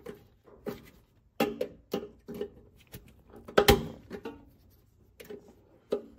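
Irregular metallic clinks and taps of hand tools on car suspension parts, about a dozen short strikes that ring briefly. One louder clank comes a little past halfway.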